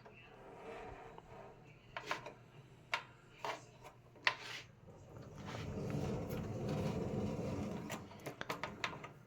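Metal box fan being handled and turned around: scattered clicks and knocks, then a few seconds of low scraping rumble as it is moved, and a few more light clicks near the end.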